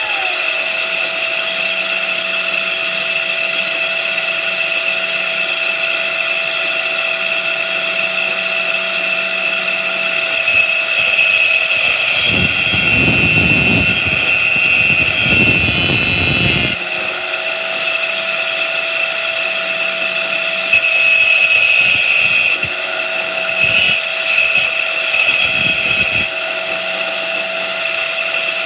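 Angle grinder clamped in a vise runs with a steady high whine while a steel rod spun in a power drill's chuck is pressed against its cutting disc, grinding out a new revolver firing pin. The rough grinding noise comes in a long spell around the middle and in shorter touches later.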